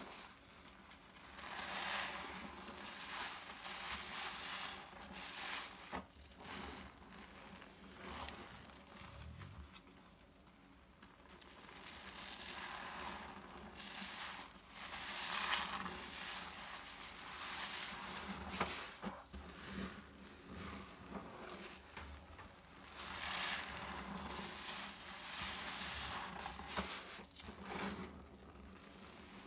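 New sponges full of liquid-soap foam being squeezed and kneaded by gloved hands in a basin: wet squelching with crackling foam, coming in waves a few seconds long.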